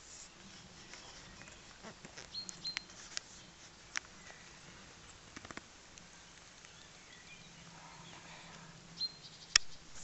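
Small birds giving short high chirps, a couple about two and a half seconds in and another near the end, over a quiet outdoor background. A few sharp clicks break in, the loudest just before the end.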